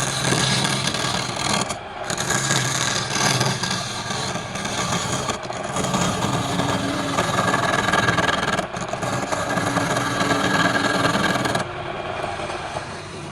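Wood lathe running with a tool scraping and cutting against a spinning piece of palm wood over a steady motor hum. The cut breaks off briefly several times and turns lighter near the end.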